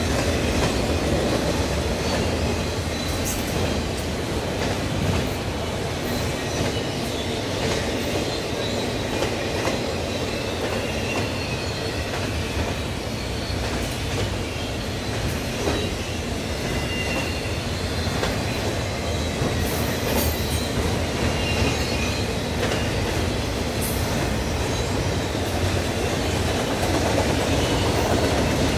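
CSX freight train rolling past: a steady rumble of wheels on rail, with scattered clicks and a faint, high wheel squeal.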